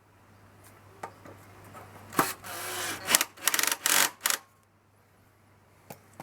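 Hand tool tightening the mounting screws of a lawnmower engine's magneto, with its gap to the flywheel set by a card spacer: a string of separate clicks and scraping rubs, with a quick run of rapid clicks about three and a half seconds in.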